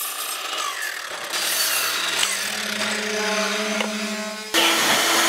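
Electric palm sander running on a wooden tabletop: a steady motor hum under a gritty rasp of the pad on the wood. It grows louder about a second in, and louder again near the end.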